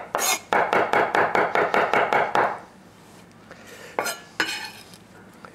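Chef's knife chopping parsley on a wooden cutting board in quick, even strokes, about five a second, stopping about two and a half seconds in. A couple of light knocks follow about a second and a half later.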